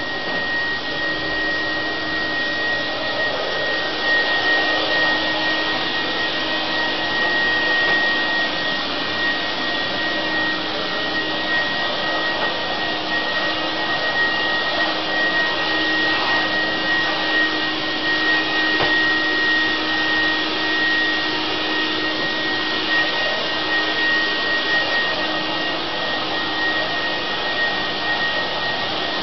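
Steady rushing blower noise from a motor-driven fan, with a constant high whine and a fainter low hum underneath.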